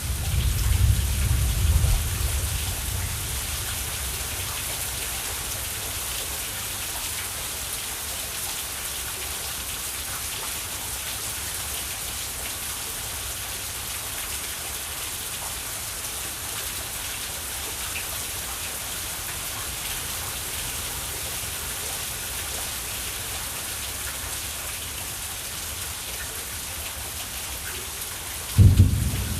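Steady rain falling in a thunderstorm, with a low rumble of thunder dying away in the first couple of seconds and a sudden loud thunderclap near the end.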